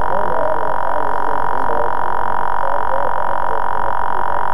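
A loud, steady whine on one pitch with a band of hiss around it.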